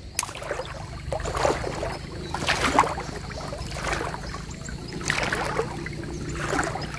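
Water sloshing and splashing in repeated surges, about one every second and a half, as a collapsible mesh shrimp trap is pushed and swished through shallow pond water.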